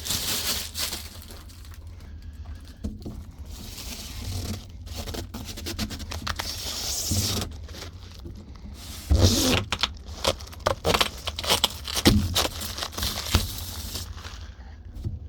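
Protective film being peeled off a new clear plastic window pane: an irregular tearing, crinkling rustle with crackles, louder about nine seconds in and again around twelve seconds.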